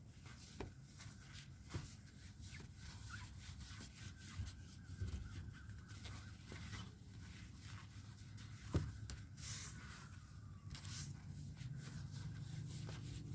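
Faint handling noises: scattered light clicks and rustles over a low steady hum.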